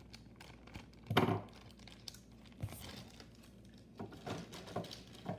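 Plastic Happy Meal toy bag crinkling and rustling as it is handled and opened, in short bursts with a louder rustle about a second in.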